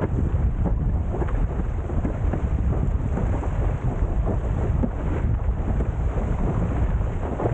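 Wind buffeting the camera microphone in a steady low rumble, with the constant splash and hiss of water as a Windsurfer LT sailboard cuts through choppy sea.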